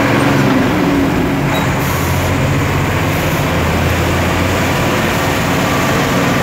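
Fire truck engine running steadily while driving, heard from inside the cab, with road and wind noise.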